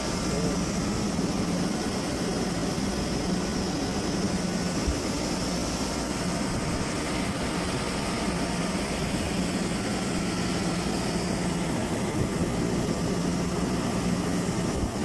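Carrier split air-conditioner outdoor unit running: a steady rush of fan air over a constant low hum.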